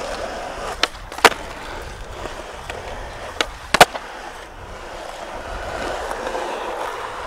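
Skateboard wheels rolling over rough asphalt, with sharp wooden clacks of the board being popped and landed in flatground flip tricks: two pairs, about a second in and about three and a half seconds in, the second clack of each the louder.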